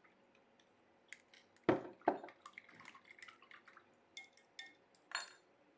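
Glass measuring cup and kitchenware being handled on a tabletop: two solid knocks about two seconds in as the cup is set down, then a run of light clicks, two small ringing clinks of glass or spoon, and a short scrape near the end.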